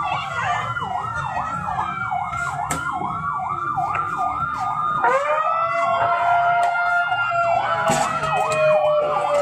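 Emergency vehicle sirens: a fast yelp sweeping up and down about three times a second, joined about five seconds in by a second siren on a slow wail. A sharp knock sounds near the end.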